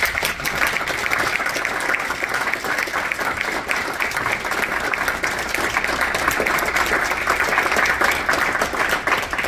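Audience applause: many people clapping together, breaking out suddenly and keeping up steadily.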